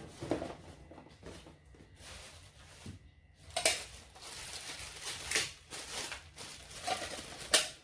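Handling noises from unboxing: rustling of packaging with scattered sharp clicks and taps, three of them louder, as things are picked up and set down.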